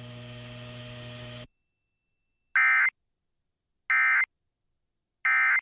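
Emergency Alert System end-of-message data bursts: three identical short buzzy bursts of digital tones, about a second and a half apart, marking the close of the severe thunderstorm warning. They are preceded by about a second and a half of steady broadcast hum that cuts off into silence.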